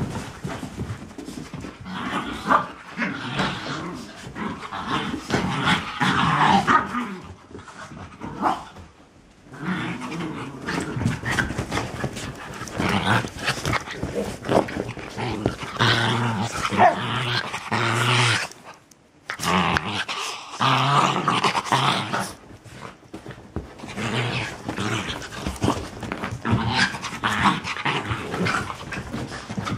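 Miniature Pinscher puppies and a Chinese Crested growling and scuffling as they wrestle in play, dropping away briefly about nine seconds in and again near twenty seconds.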